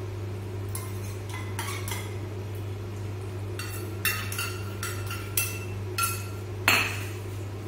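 Steel spoon clinking and scraping against a small steel bowl as gram flour batter is scraped out of it into the pan: a scatter of light metallic clinks, coming faster in the second half, the sharpest one near the end.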